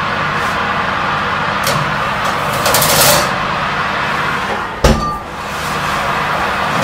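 Metal kitchen tools scraping and clinking against a wall oven's rack as a round pizza peel slides a khachapuri in and is drawn back out, with one sharp metal clang about five seconds in, over a steady rushing noise.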